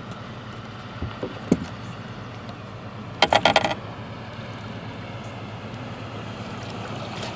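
A hooked flathead catfish thrashes at the surface beside the boat as it is grabbed by hand, making a short flurry of splashes about three seconds in. A couple of light knocks come about a second in.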